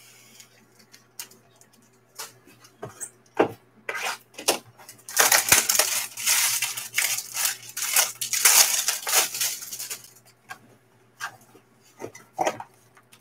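Plastic shrink-wrap crinkling and tearing as a sealed trading-card box is unwrapped, a dense crackle from about five seconds in to about ten, with scattered taps and clicks of the box being handled before and after.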